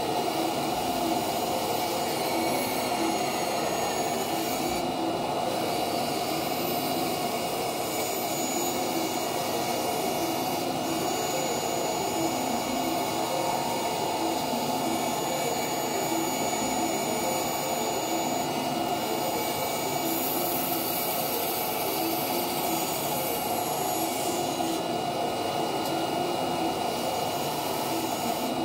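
Bandsaw running steadily with its blade cutting through a thick walnut board.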